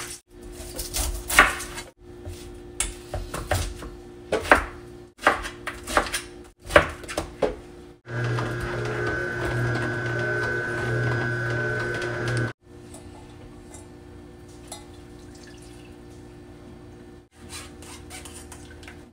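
Knife cutting through a pineapple on a plastic cutting board, with crunching strokes. About eight seconds in, an Omega vertical slow juicer's motor runs steadily with a low hum for about four seconds. Quieter kitchen handling follows.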